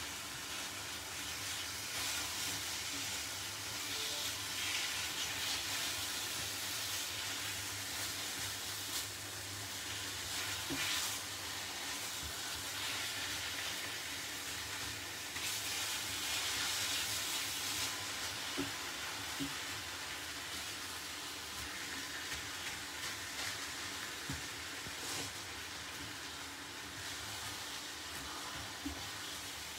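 Braising steak sizzling as it browns in a hot frying pan: a steady frying hiss that swells and eases, with a few light clicks.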